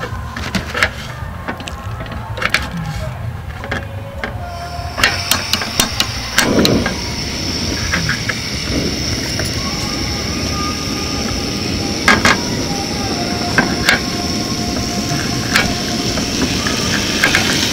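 Lamb skewers and steak start to sizzle on the heat about five seconds in, a steady frying hiss that keeps on, broken by a number of sharp clicks and knocks.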